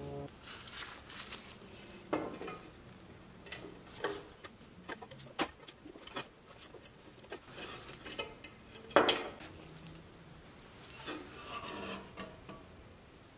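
Light metallic clinks, taps and knocks of a pressed-steel toy truck bed and its parts being handled and taken apart on a wooden bench, in scattered strokes with the loudest knock about nine seconds in.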